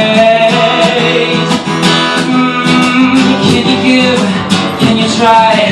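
Acoustic guitar strummed in a steady rhythm, an instrumental passage of a live solo song.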